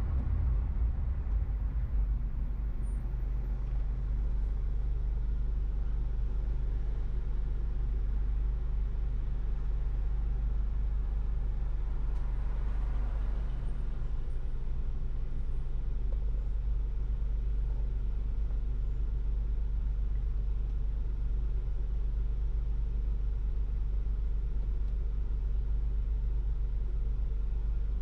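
Steady low rumble of a car driving along a city avenue: engine and road noise, with a faint swell of passing traffic around the middle.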